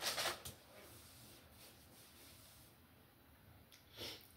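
A brief rustle of movement close to the microphone, then a low hiss, and a second, shorter rustle about four seconds in.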